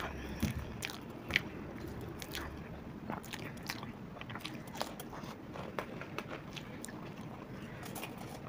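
A person eating a crisp fried samosa: irregular crunchy bites and chewing of the pastry shell, with the sharpest crunches in the first second and a half.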